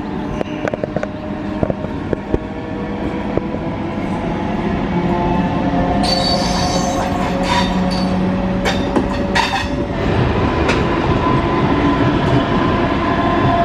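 A train moving on the track, its wheels squealing in several steady high-pitched tones over a rumble, with scattered sharp clicks; it grows louder through the first half.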